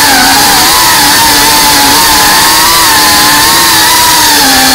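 FPV quadcopter's brushless motors and propellers whining loudly over a heavy rush of noise, the pitch drifting gently up and down with the throttle.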